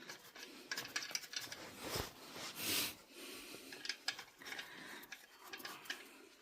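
Hand ratchet wrench clicking in short, irregular runs as nuts are turned down by hand, with light metal clinks.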